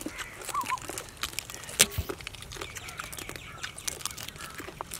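Cooked crab shells cracking and crunching as several people bite and pull them apart by hand, heard as a run of irregular sharp clicks and crackles. The loudest crack comes just before two seconds in.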